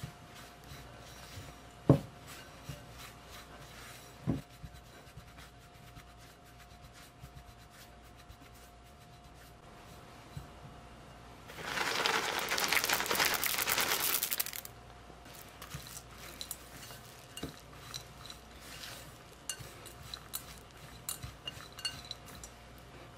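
Silicone spatula working crumbly scone dough in a glass bowl, with two sharp knocks against the glass about two and four seconds in. About twelve seconds in, chocolate chips are poured into the bowl as a dense patter lasting about three seconds. The spatula then stirs them in with light clicks.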